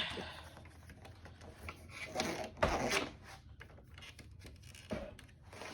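Handling noises as the vacuum cleaner's power cord is unwound: rubbing and scraping with scattered clicks, a thump just under three seconds in and a knock about five seconds in.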